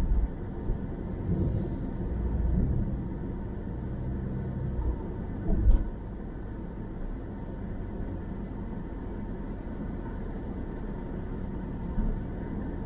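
Car driving on a city road: a steady low rumble of tyre and engine noise, with a short thump about halfway through.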